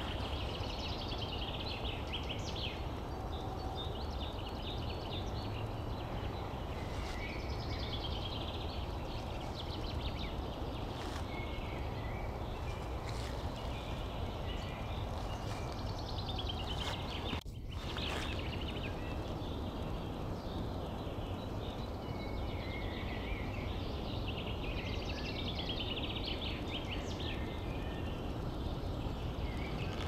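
Woodland songbirds singing: short trilling song phrases repeated every few seconds, over a steady low background rush. The sound drops out for an instant about halfway through.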